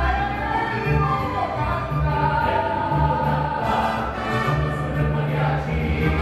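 Mariachi band playing live: male voices singing long held notes over violins, harp and a plucked bass line that steps from note to note.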